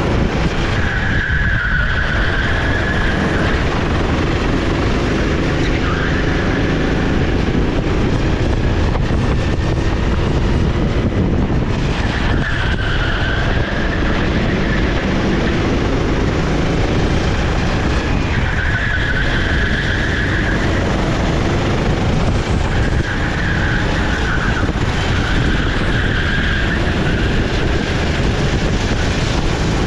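Sodi SR4 racing kart's 390cc single-cylinder four-stroke engine running hard, its pitch rising and falling as it accelerates and brakes for corners. A high tyre squeal comes in at several points through the corners.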